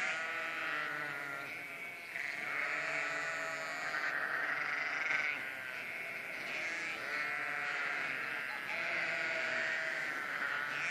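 A flock of sheep bleating, many calls overlapping one another without a break, as a flock calls at feeding time.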